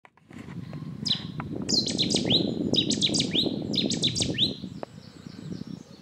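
Cetti's warbler singing: a loud burst of repeated sweeping notes in quick clusters, lasting about three and a half seconds, over a low rumbling background noise.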